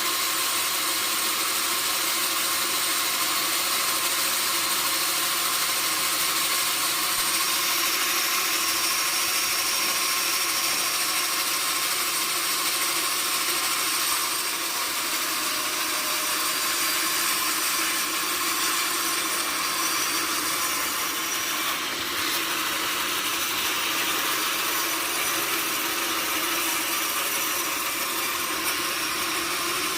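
Sawmill saw cutting steadily through a log: a continuous, high-pitched rasping hiss that runs without a break.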